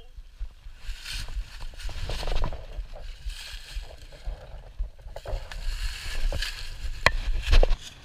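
Footsteps crunching and rustling through dry fallen leaves, a step about every second, over a steady low rumble, with two sharp knocks near the end.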